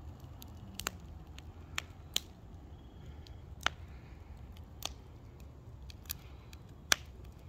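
Fire burning in a fire pit, crackling with sharp irregular pops, about seven of them, the loudest near the end, over a low steady rumble.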